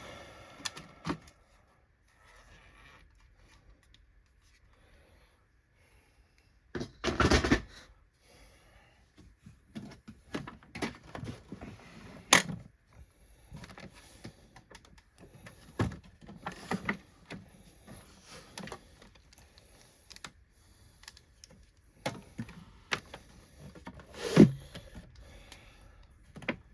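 Irregular clicks, knocks and rustles of the plastic parts of a Hoover Windtunnel Supreme upright vacuum being handled and taken apart for cleaning, with a louder bout of handling about seven seconds in and sharp knocks near the middle and near the end.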